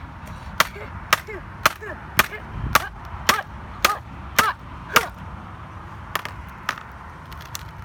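Hammer blows on a MacBook's keyboard, about ten sharp, evenly spaced strikes at roughly two a second, then a few more spread out toward the end.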